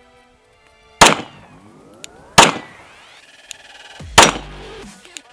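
Three shots from a 9mm Glock 19 Gen 4 pistol, the first about a second in and the others roughly a second and a half apart, each with a short echo. The pistol is cycling reloaded (handloaded) ammunition without a malfunction.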